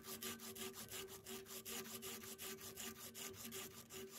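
Abrasive paper rubbed rapidly back and forth against the steel inside the jaw of a rusty wrench, about seven scraping strokes a second, over a steady low hum.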